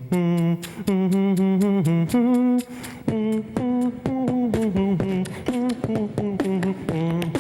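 A man beatboxing, humming a melody of held and wavering notes while making sharp percussive clicks with his mouth at the same time, so that voice and beat sound together.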